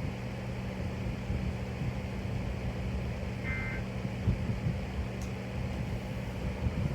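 Steady low electrical hum and hiss, broken about halfway through by one short, high two-tone data warble of the kind that ends an EAS alert.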